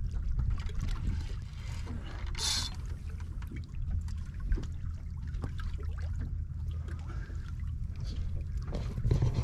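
Water lapping and trickling against the hull of a small boat at sea, over a steady low rumble, with scattered small splashes and a brief hiss about two and a half seconds in.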